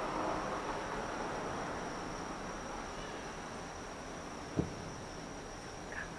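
Crickets trilling steadily, high-pitched, over a constant background hiss. About four and a half seconds in comes a single dull boom from a distant fireworks shell bursting.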